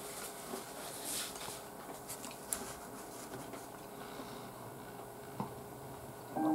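Soft rustling of a paper tissue being handled, a few faint crinkles over the first couple of seconds, then quiet room tone with a single soft click near the end.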